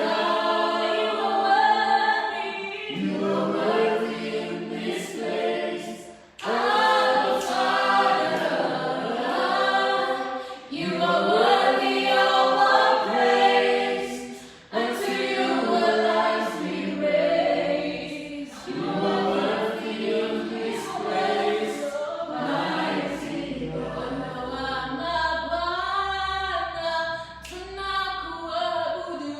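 A praise team of several voices singing a worship song together, phrase after phrase, with brief pauses between phrases.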